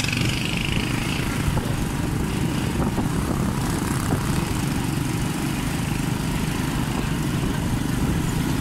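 Motorcycle engine running steadily at cruising speed, mixed with rough wind rumble on the microphone.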